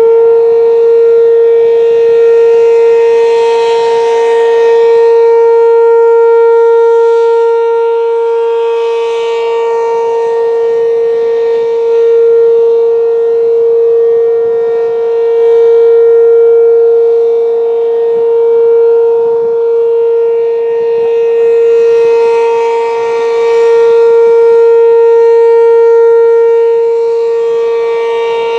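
ACA P-15 outdoor warning siren holding a steady single-pitch alert tone at full speed, just after winding up. It is loud throughout, swelling and fading every several seconds.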